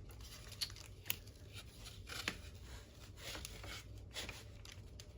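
Faint handling sounds as a plastic N scale turnout and its wire are worked into place on the layout: a few scattered sharp clicks over light rustling.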